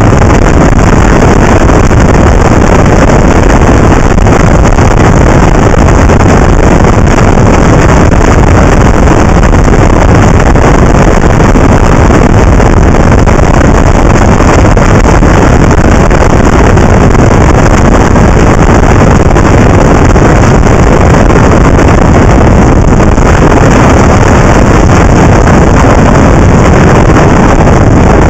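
Loud, unbroken wind rush on the microphone of a camera mounted on a moving motorcycle.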